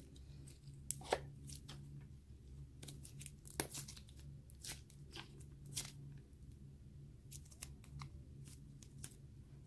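Soft white slime-like clay being squeezed and stretched between the fingers for ASMR, giving faint, irregular crackles and small pops, over a steady low hum.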